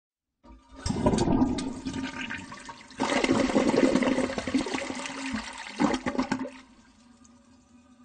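Toilet flushing, recorded very close: a rush of water that surges about a second in and again at about three seconds, then stops fairly suddenly near the end, leaving only a faint steady background.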